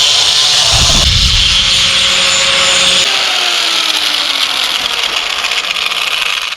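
A power tool running with a loud, steady grinding hiss. A little after three seconds the sound changes and a faint falling whine appears.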